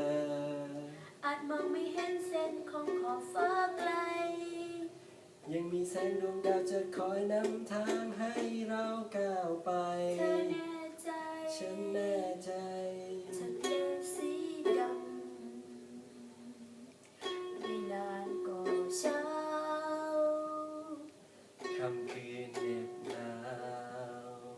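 A ukulele playing chords behind a singing voice, with the sound of a small room.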